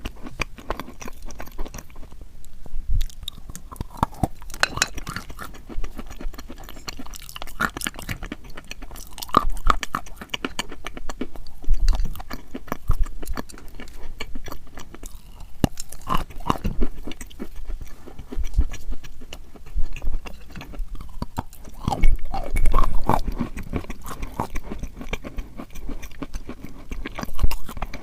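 Chalk being chewed: a steady run of crisp crunches, with a louder bite every few seconds.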